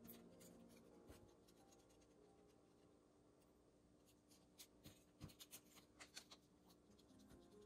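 Very faint handling of a small plastic bag of glitter while glitter is sprinkled: light rustles, then a quick run of small ticks and taps from about halfway through.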